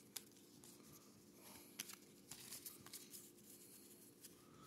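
Faint rustling and flicking of a stack of cardboard baseball cards being turned over and handled, with a few light clicks of card edges.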